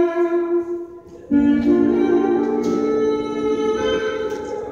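Background music with held, changing notes. It dips briefly about a second in, then comes back.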